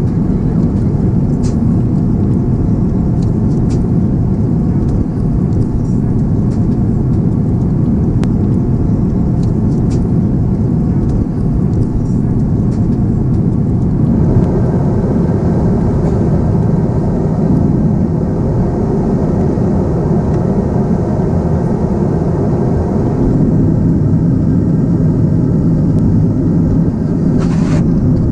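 Steady low roar inside the passenger cabin of an Airbus A350-900 in cruise: airflow and Rolls-Royce Trent XWB engine noise, even throughout. A few faint clicks in the first half.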